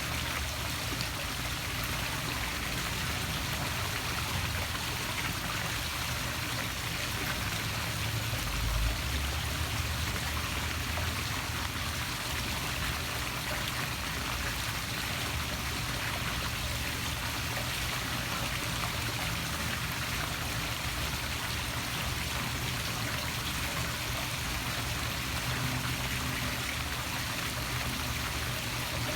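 Poolside waterfall splashing steadily into the pool, water pouring and churning without a break.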